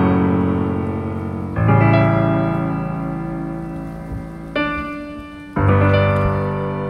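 Slow background piano music: sustained chords, a new one struck every one to three seconds and left to ring and fade.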